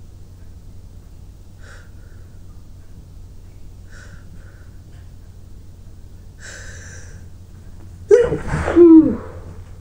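A person's sneeze brought on by tickling the nose: a few faint sniffs, a drawn-in breath, then one loud sneeze with the voice in it, falling in pitch, about eight seconds in.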